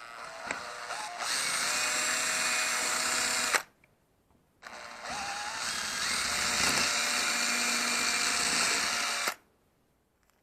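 Power drill running in two bursts of a few seconds each with a short pause between, the bit re-drilling the screw holes in a plastic refrigerator handle.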